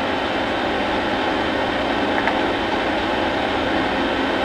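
Steady rushing machine noise that holds an even level, with no clear rhythm or change.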